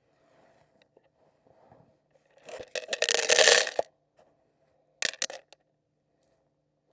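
Dried corn kernels scattered for chickens, a dense pattering shower lasting about a second and a half, then a shorter spill of kernels about a second later.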